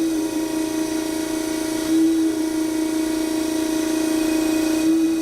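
Harig 612 hydraulic surface grinder running: a steady whine from the spindle and hydraulic pump, with three brief surges as the table reverses at its stops.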